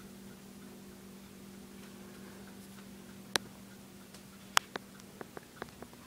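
Dayton 4C854 56-inch commercial ceiling fan motor humming steadily. A sharp click comes a little past halfway, then about six more sharp clicks and taps near the end, from the metal motor housing being handled.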